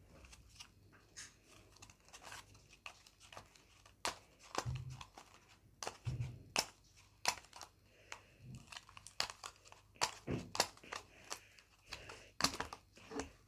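Tealight packaging being handled and opened, giving faint, irregular crinkles and sharp crackles scattered throughout.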